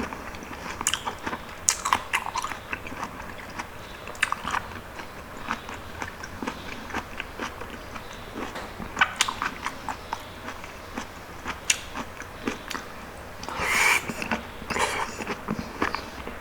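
Close-miked chewing of soft, juicy palm fruit (sea coconut) flesh, with many small wet, sticky mouth clicks and squelches. There is a louder, denser wet stretch about three-quarters of the way through.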